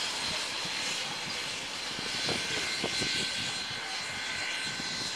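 NZR Ja-class 4-8-2 steam locomotive pulling its train away at low speed: a steady rumble with a few uneven exhaust beats.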